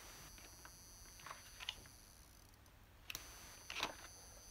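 Failing LED filament light bulb, just switched on, making a faint, irregular clicking, a handful of clicks over a few seconds, over a faint steady high whine. The clicking is a sign of the bulb's fault, which the uploader thinks may be a failed buck converter in its driver.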